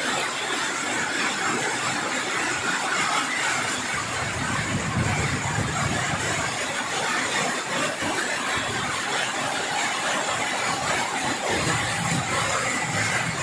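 Heavy rain falling in strong wind, a steady dense hiss.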